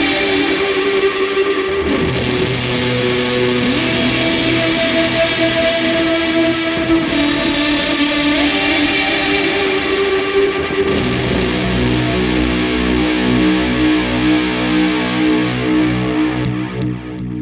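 Electric guitar played through a shoegaze effects chain of fuzz, chorus, reverb and delay: dense, distorted chords that ring on and wash together, changing every few seconds. Near the end the sound thins and dips for a moment.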